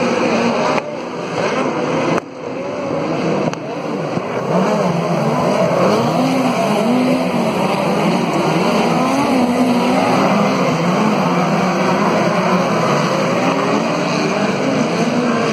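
A pack of dirt-track race cars racing around an oval, several engines running at once. Their pitch keeps rising and falling as the cars pass and go through the turns, with the loudness dropping abruptly a few times in the first few seconds.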